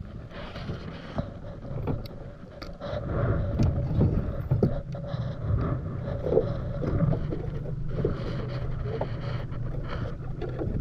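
Boat motor running steadily, with wind on the microphone and a few light knocks.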